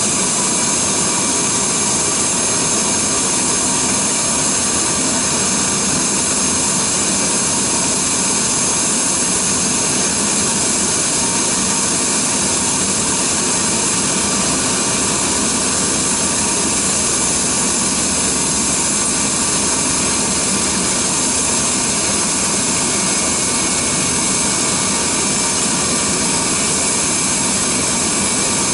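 Cessna Citation Sovereign business jet's Pratt & Whitney Canada PW306C turbofans running steadily at ground idle, a constant rush with a steady high whine.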